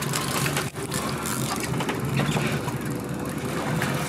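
Steady running noise of a trolling fishing boat's motor mixed with wind and water, with scattered clicks and knocks from the rods and gear.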